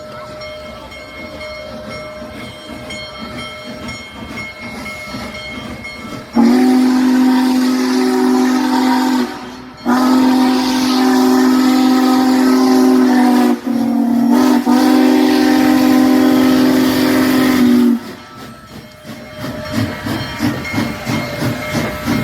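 Union Pacific Big Boy steam locomotive's chime whistle blowing three long blasts, the last two nearly run together. Before and after the whistle the train rumbles as it rolls past.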